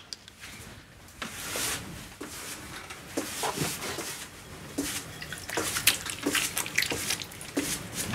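Wet hands working a lump of clay on a potter's kick wheel, with irregular wet squelches, drips and small splashes.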